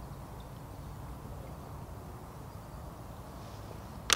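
Steady low outdoor rumble with no distinct source, then one sharp click near the end.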